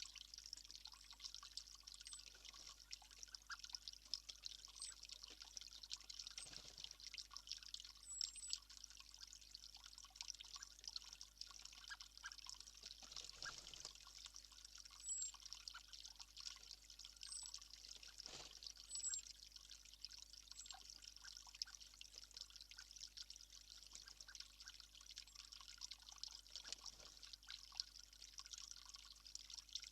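Faint outdoor ambience: a steady, trickling hiss with short, very high, thin bird calls every few seconds.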